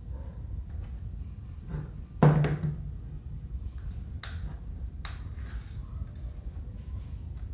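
A single sharp knock of a hard object, with a brief low ringing tone, about two seconds in, then two lighter clicks a second or so apart.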